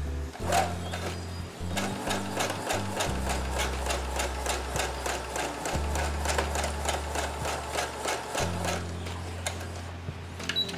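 Brother SQ9185 computerized sewing machine running a straight stitch at speed, free-motion, with the feed dogs dropped and a spring-action quilting foot hopping with the needle: a fast, even run of needle strokes. It starts about half a second in and stops shortly before the end.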